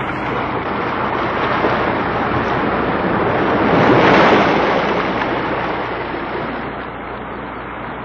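Rushing, surf-like water noise that swells to its loudest about halfway through and then slowly eases off.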